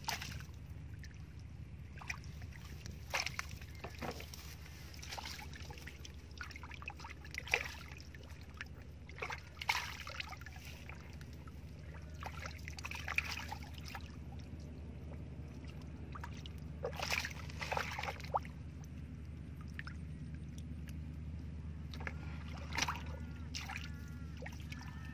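Hands and fish splashing and sloshing in shallow muddy water as fish are grabbed by hand. The splashes are short and irregular, a dozen or so, over a steady low hum.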